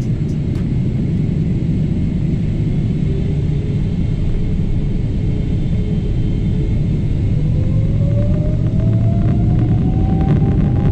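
Boeing 777-300ER's GE90 turbofan engines at takeoff thrust, heard from inside the cabin on the takeoff roll: a deep, steady rumble, with a thin tone climbing in pitch from about three seconds in as the aircraft accelerates.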